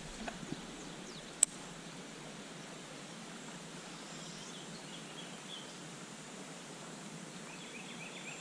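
Shallow, rocky river riffle flowing with a steady rush of water. A single sharp click comes about a second and a half in, and faint high chirps sound through the middle.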